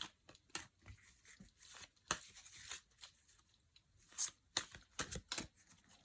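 Deck of fortune-telling cards being handled and shuffled: a run of short, dry flicks and rustles at uneven intervals.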